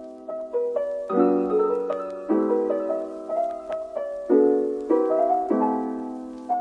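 Background music: piano playing soft chords, a new chord struck about every second, with a melody above them.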